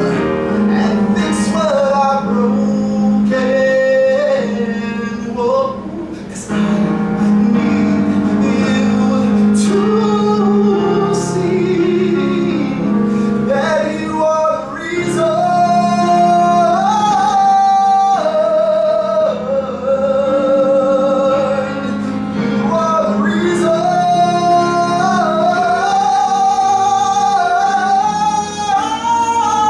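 A man singing solo, long held notes sliding between pitches and climbing near the end, over a steady sustained instrumental accompaniment.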